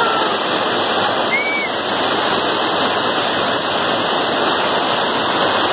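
Small waterfall: falling water rushing in a steady, even roar.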